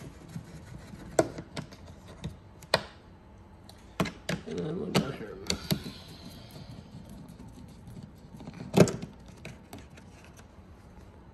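Scattered clicks and knocks of a Torx screwdriver backing T20 screws out of a Tesla Model Y's plastic fog-light housing, with the plastic part being handled. One sharp knock, the loudest, comes about three-quarters of the way in.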